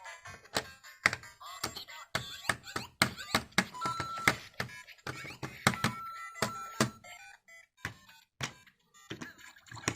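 LEGO Super Mario interactive figure hopped across plastic LEGO bricks in a quick series of thunks, about two to three a second, while its built-in speaker plays short electronic game beeps and jingles.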